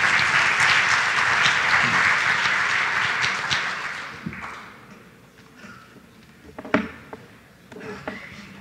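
Audience applauding, dying away about four seconds in; then a few scattered knocks, the loudest a little before the seventh second.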